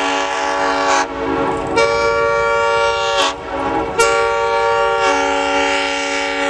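Diesel locomotive air horn, several notes sounding together as a chord, blown in long blasts. The horn breaks off about a second in, sounds again, cuts off briefly a little after three seconds, then comes back in a long blast.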